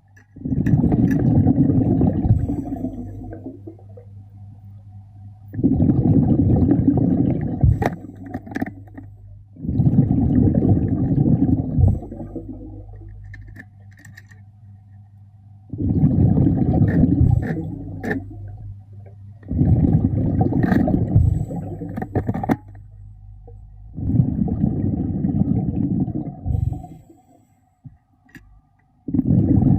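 A diver exhaling underwater through a breathing regulator: a rush of bubbles lasting two to three seconds, repeated about every four seconds, with a steady low hum between breaths.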